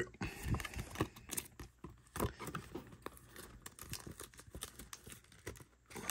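Quiet rustling and irregular light clicks of a baseball card being handled and turned in the fingers.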